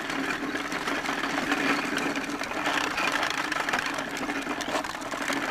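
Hard plastic wheels of a toddler's ride-on tricycle rolling over an asphalt road, a steady grinding rattle.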